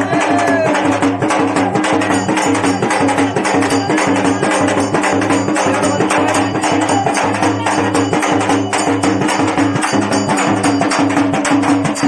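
Folk percussion music: a dafli frame drum struck in a fast, dense rhythm over a steady sustained tone from an accompanying instrument.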